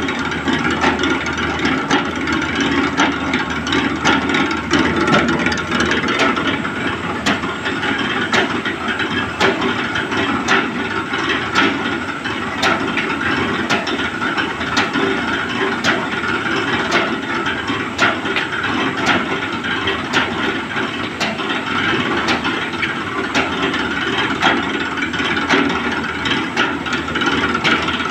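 Buffet plate sheet making machine running: a steady mechanical clatter of its belt and pulley drive and rollers, with sharp clacks about every second.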